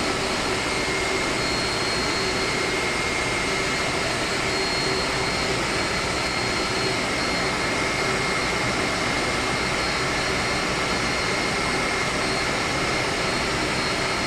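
Steady drone of running air-conditioning plant machinery: an even mechanical noise with a constant high whine over it.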